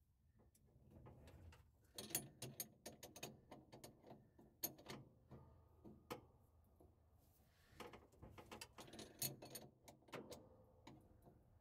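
Hand tools clicking and scraping on a small metal fastener as a screwdriver and wrench work it: irregular sharp ticks and taps in clusters, with short pauses between.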